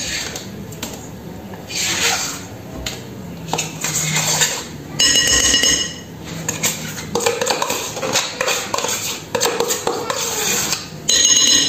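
A metal spoon scraping mascarpone out of a plastic tub and knocking and clinking against a glass mixing bowl as the cheese is dropped into cake batter, in irregular scrapes and taps.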